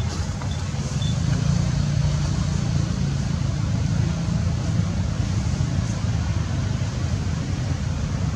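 A steady low rumble with an even hiss above it, constant throughout.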